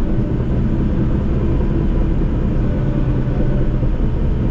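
Cat bulldozer's diesel engine running steadily under load while cutting a road, with an even low drone.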